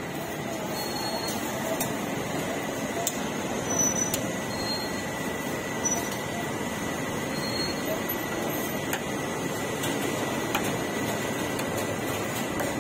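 Busy street-food market ambience: a steady wash of background chatter and general noise, with a thin steady high tone and a few faint clicks.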